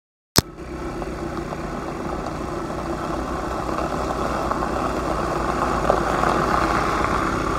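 Volkswagen Transporter T6 van's engine running as the van drives slowly up close, growing gradually louder. There is a brief dropout and a sharp click right at the start.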